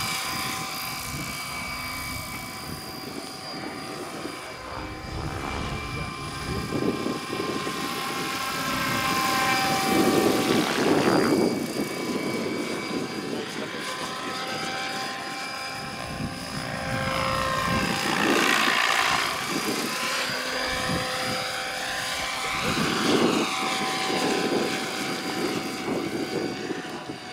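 Electric scale model Hughes MD500 helicopter in flight, its rotors and electric drive whirring with a steady high whine. It grows louder three times as it passes close, the pitch sliding up and down as it goes by.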